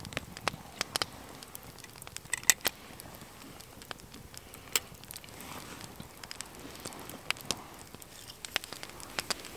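Small wood fire of split sticks crackling, with irregular sharp pops and snaps.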